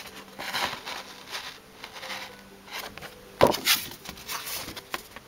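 Paper insert and cardboard packaging being handled: a run of rustles and slides, with a sharp knock about three and a half seconds in.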